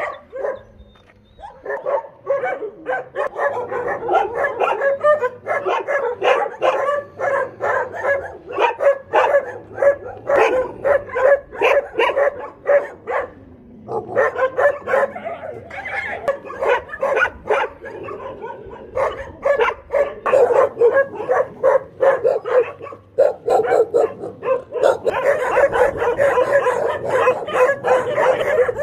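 Many stray dogs in shelter pens barking and yipping together: a dense, continuous chorus of overlapping barks. It breaks off briefly a few times and grows fuller near the end.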